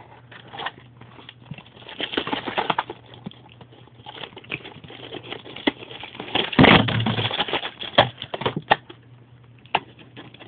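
Toy packaging being handled and opened: a cardboard box and small plastic bags of parts, with irregular taps, clicks and rustling. The loudest stretch is a longer rustle about seven seconds in.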